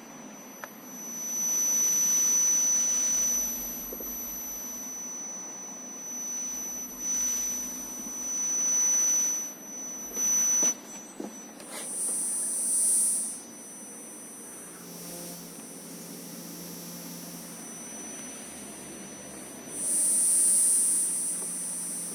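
Electromagnetic interference from the powered-on Rockwheel GT16 V3 electric unicycle's controller, heard through a magnetic-field pickup rather than as acoustic sound. A steady high electronic whine runs with rising and falling hiss for about the first ten seconds. Later come two short, louder, higher buzzes about eight seconds apart, with a low hum alongside.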